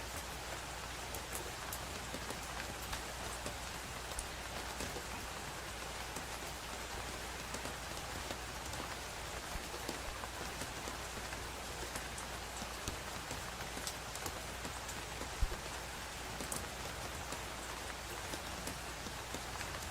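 Steady rain falling on a surface, an even hiss dotted with the ticks of individual drops, with one sharper knock about three quarters of the way through.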